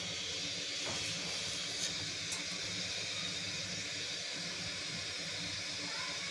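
Desi ghee melting in a hot non-stick pan, giving a steady gentle sizzling hiss with a couple of faint pops about two seconds in.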